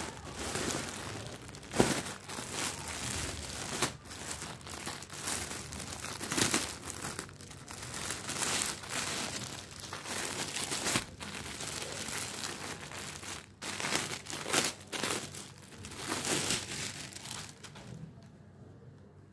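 Plastic packaging crinkling and rustling in irregular bursts as hands pull open a courier polybag and handle clear-wrapped suit fabric. It dies down near the end.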